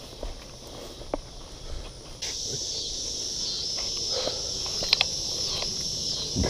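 Insects buzzing steadily in a high pitch, suddenly louder about two seconds in, over footsteps and scattered knocks as someone walks through tall grass carrying a fishing rod.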